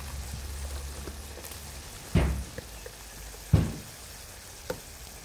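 Fish curry simmering in a large open wok, a steady bubbling hiss, broken by two loud thumps a second and a half apart near the middle.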